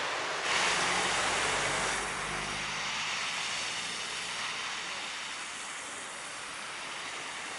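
Road traffic passing on a wet, snowy street: a steady hiss of tyres with the low hum of car and van engines.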